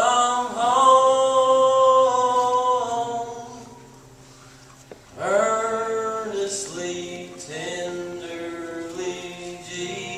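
Youth choir singing a slow piece with long held notes. The opening phrase is held for about three seconds and dies away, and a new phrase begins about five seconds in.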